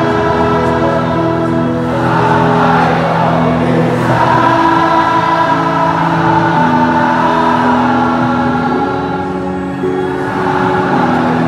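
A large stadium crowd of football supporters singing a slow chant together, many voices holding long notes that step from one pitch to the next.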